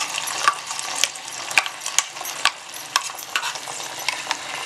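Hot oil sizzling and crackling around a wet ground masala paste just added to cooked black-eyed peas and curry leaves in a pot, with sharp pops about every half second over a steady hiss.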